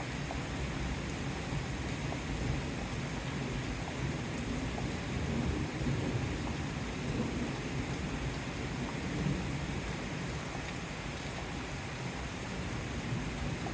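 Steady rain falling in a thunderstorm, with low rumbling of thunder underneath.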